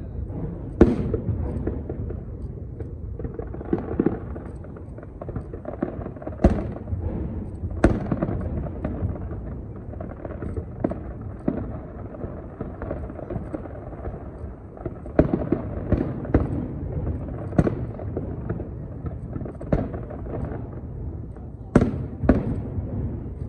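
Aerial fireworks shells bursting: a string of sharp bangs at irregular intervals, several close together in the latter half, over a continuous low crackle and rumble.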